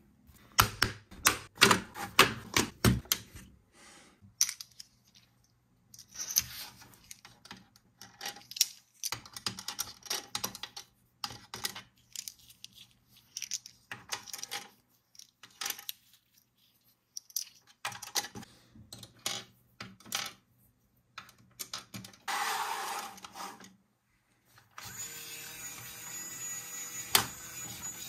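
Hard plastic toy parts of a Bluey Keepy Uppy balloon game clicking, tapping and snapping as they are fitted together and its plastic discs are handled. Near the end the game's small motor switches on and runs steadily.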